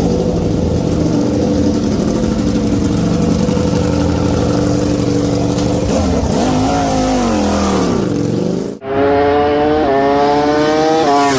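Superbike racing engines at high revs. One engine holds a steady pitch, then its pitch falls and wavers as it slows. After a sudden cut, another engine pulls through the gears, its pitch climbing and dropping back at each upshift.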